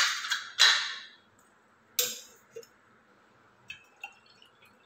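Stainless steel spoon and strainer clinking against a stainless steel bowl: a few sharp metallic clinks with a short ring in the first two seconds, then faint clicks near the end.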